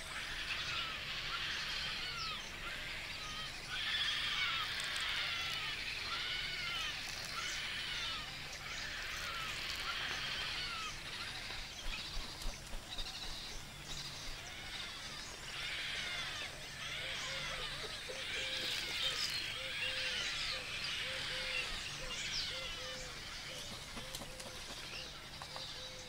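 Nesting colony of painted storks, the chicks begging: a dense, steady chorus of many short, arching squeaky calls overlapping one another. From about two-thirds of the way through, a lower call also repeats about twice a second.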